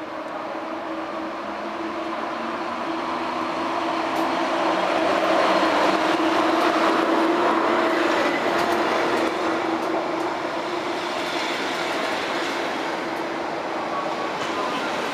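EP07 electric locomotive and its passenger coaches running along the platform, with a steady hum and a rolling rumble that grow louder as the locomotive draws level about five seconds in, then ease as the coaches pass. Scattered wheel clicks come in over the rails.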